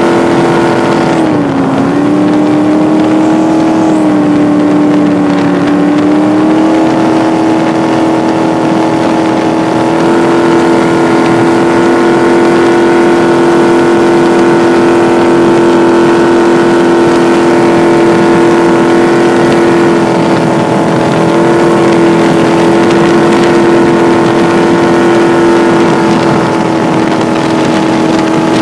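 Ford 460 big-block V8 driving a fiberglass jet boat at cruising speed, a steady engine drone. The engine note drops briefly about a second in and climbs back to a steady pitch about six seconds in.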